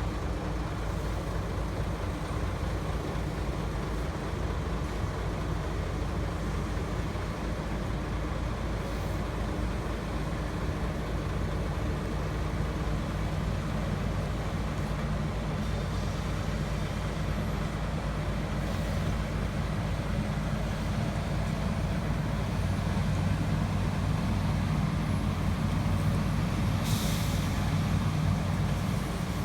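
Heavy diesel engines of a Kobelco 380D excavator and a Hyundai HD270 dump truck running under load, a steady low drone that grows louder over the last few seconds. A short hiss of air comes near the end.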